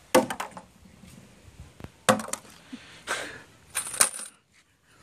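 Plastic Easter eggs, some holding coins, dropped into a metal tub, each landing with a sharp clatter and a short metallic ring. This happens several times, about a second or two apart, with two quick drops together near the end.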